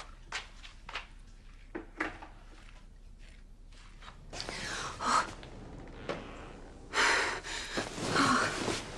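A few soft sniffs and clicks, then from about four seconds in heavy, gasping breaths in two loud spells, like someone sobbing.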